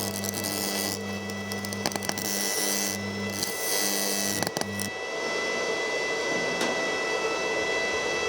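Electric arc between carbon electrodes, fed by a welder, buzzing and crackling in stretches that start and stop over about the first five seconds. After that a steady rushing noise carries on without the buzz.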